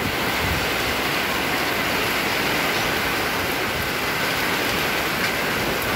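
Heavy rain pouring steadily onto a flooded street, a constant even hiss.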